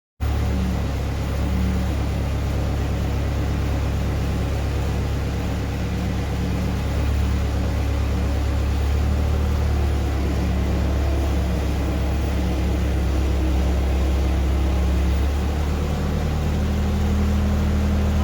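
Engine running steadily at a low, even speed, its note shifting slightly about seven seconds in and again near the end.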